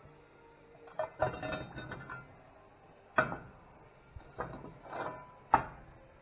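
Pieces of steel clanking as they are handled and set down: about six sharp metallic knocks, some ringing briefly, the last one the loudest.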